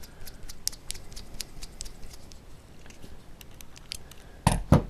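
Small bolts and parts being handled while fitting a gimbal's pitch motor: a run of light, sharp metallic clicks and ticks, then two louder knocks close together near the end.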